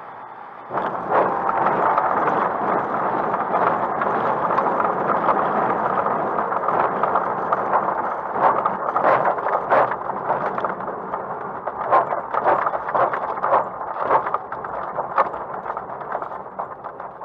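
Glider touching down on a grass airfield about a second in, then its wheel rumbling over the bumpy grass with rapid knocks and rattles through the airframe, easing off near the end as it slows.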